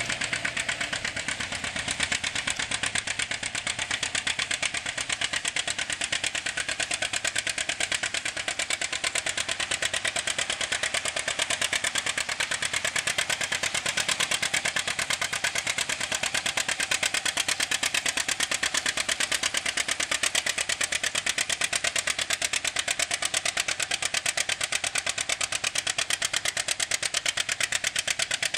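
John Deere G's two-cylinder engine, bored and stroked, working under load as the tractor pulls a weight-transfer sled: a rapid, even exhaust beat held steady throughout.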